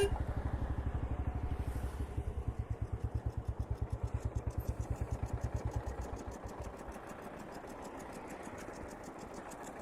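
Royal Enfield Bullet's single-cylinder engine idling with an even thump, about eight to ten beats a second. About six seconds in the beat slows and dies out as the engine is switched off, leaving a faint steady background with light ticking.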